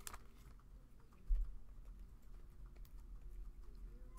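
Stack of trading cards from a freshly opened foil pack being handled and squared up in the hands: faint, scattered light clicks, with one low thump about a second and a half in.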